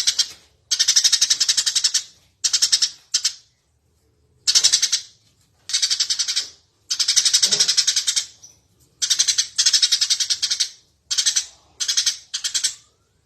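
Eurasian tree sparrow chattering: bursts of fast, high chirps, each half a second to a second and a half long, broken by short pauses, about a dozen times over.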